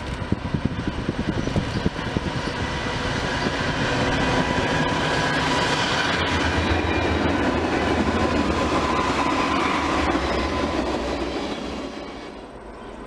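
Freight train of diesel-electric locomotives and tank cars passing close by: the locomotives' engines growl as they go past, then the cars roll on with wheels clacking over the rails. The sound swells a few seconds in, holds, and fades near the end.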